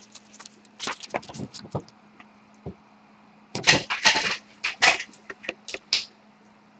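Sharpie marker scratching on a paper sheet, followed by the paper being moved and rustled, heard as a string of short, uneven scratches and rustles, loudest around the middle. A faint steady hum sits underneath.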